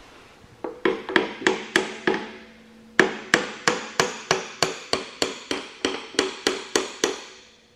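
Hammer striking a wrench on a seized bolt, trying to shock it loose: a short run of metal blows, a brief pause, then a longer steady run at about three blows a second, each one ringing.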